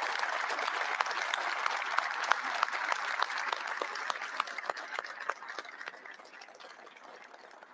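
Large audience applauding in a hangar. The clapping starts full and gradually dies away over the last few seconds.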